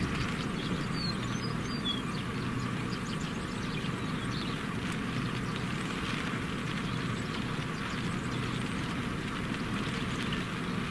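Steady cabin noise of a stopped vehicle: its engine idling with a low even hum under a steady hiss.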